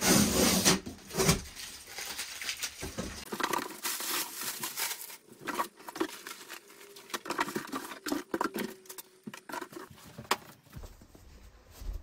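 Packaging being handled: irregular rustling and crinkling with scattered taps and clicks, as the boxed chainsaw and its parts are unpacked.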